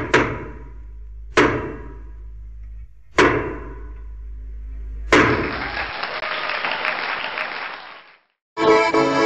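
Logo-intro sound effects: four heavy hits, a second or two apart, each ringing away, then a rushing noise that fades out. Accordion music starts just before the end.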